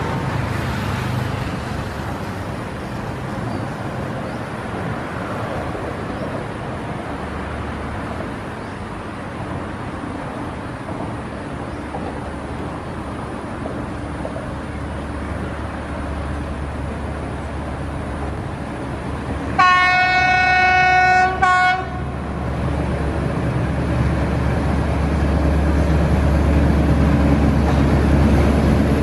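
Diesel locomotive hauling a container freight train, its engine rumbling steadily as it approaches. About two-thirds of the way through it sounds its horn in one steady-pitched blast of about two seconds, broken briefly just before it ends. The engine's deep rumble grows louder near the end as the locomotive draws close.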